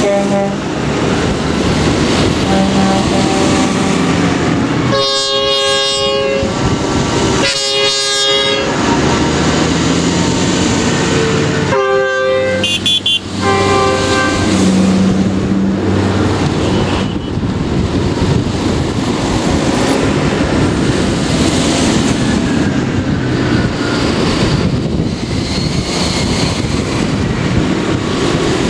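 A convoy of large farm tractors driving past, their diesel engines running steadily. A horn sounds three times: two long blasts about five and seven and a half seconds in, and a shorter, higher one around twelve seconds.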